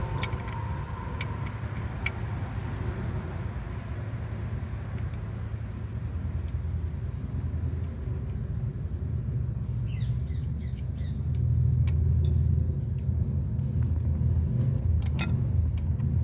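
A steady low mechanical rumble, like an engine or machine running nearby, that grows louder about eleven seconds in. A few light metallic clicks and ticks of hand tools come through it.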